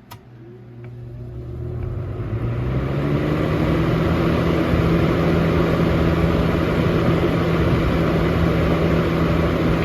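Lasko 3723 box fan switched on at high speed: a click of the switch, then the motor hum rising in pitch as the blades spin up over about three seconds, settling into a steady hum with a rush of air.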